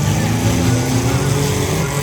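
Six-cylinder demolition derby car engines running loud, their pitch rising and falling a little as they rev.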